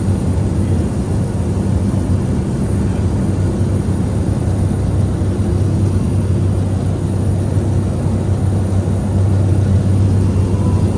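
DHC-3 Otter floatplane's engine and propeller running steadily in flight after takeoff, heard from inside the cabin as a loud, even, low drone.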